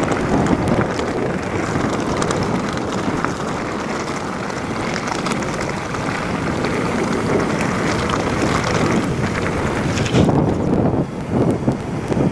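Mountain bike descending a gravel track at speed: wind buffeting the microphone over tyres crunching on loose stones and the bike rattling. About ten seconds in the crackle thins out as it rolls onto smooth tarmac, leaving choppy wind gusts.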